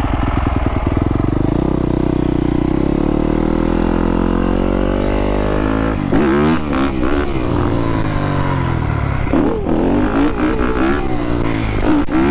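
Dirt bike engine heard from the rider's seat: its pitch climbs steadily for the first few seconds as the bike accelerates, then from about halfway the revs swing up and down again and again as the throttle is worked.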